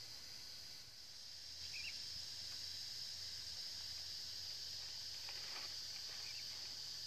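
Steady high-pitched insect chorus, with a brief chirp about two seconds in.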